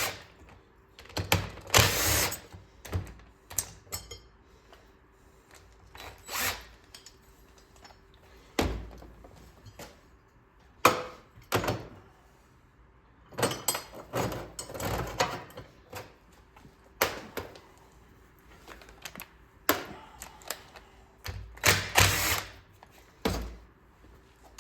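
Impact wrench spinning off the bolts of a Clinton 410 engine's back plate, run in a dozen or so short, loud bursts with pauses between them.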